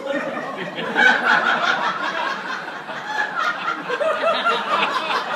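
Audience of many people laughing together, swelling to its loudest about a second in and carrying on.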